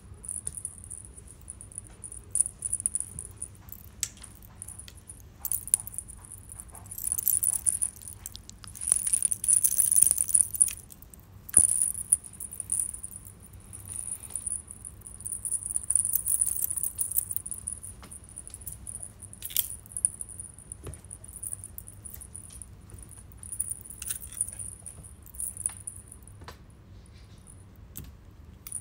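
Small bells on a cat toy jingling in irregular bursts as kittens bat at it, with a few short clicks in between.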